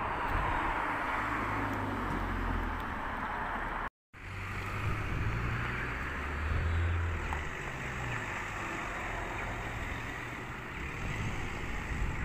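Outdoor noise of wind on the microphone over the low, steady hum of a vehicle engine running. The sound drops out for a moment about four seconds in.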